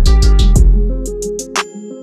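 Background music for a dance sequence: deep bass notes under steady melodic tones, with quick percussion ticks several times a second. The bass and percussion drop out about a second and a half in, leaving the sustained notes.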